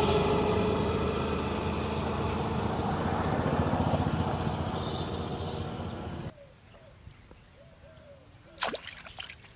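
Motor vehicle engine rumble, slowly fading, that cuts off suddenly about six seconds in; then quiet with a sharp click near the end.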